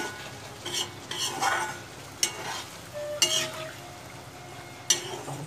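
Flat metal spatula stirring chicken and potato curry in a black iron kadai, scraping and knocking against the pan about half a dozen times at irregular intervals. Under it is a steady low sizzle of the curry cooking.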